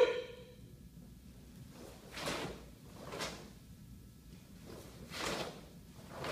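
The echo of a short shout dies away at the very start. Then come four brief swishes a second or two apart: a karate gi snapping with each block and strike, and bare feet sliding on a wooden floor.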